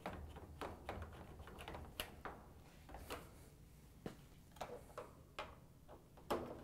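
Faint, irregular light clicks and ticks of a hand Phillips screwdriver tightening the screws that hold a washer's control console to the cabinet.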